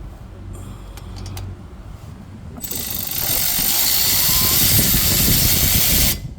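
Cordless electric ratchet running for about three and a half seconds, starting about two and a half seconds in, as it spins a loosened wheel hub mounting bolt out, then cutting off suddenly.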